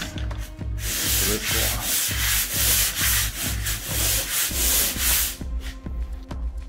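Pole sander's sanding pad scraping over dried drywall joint compound in repeated strokes, stopping about five seconds in.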